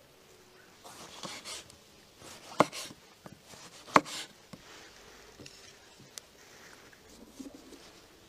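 Kitchen knife cutting tomatoes on a wooden chopping board: a few soft slicing strokes, then two sharp knocks of the blade on the board about a second and a half apart.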